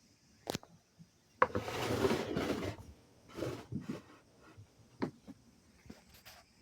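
Handling noises: a sharp click, then a scraping, rubbing stretch for about a second and a half, followed by scattered smaller scrapes and clicks.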